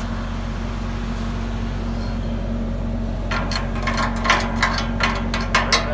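Steady machine hum, then from about halfway through a quick, irregular run of short, sharp metallic knocks on a steel trailer frame, some of them ringing.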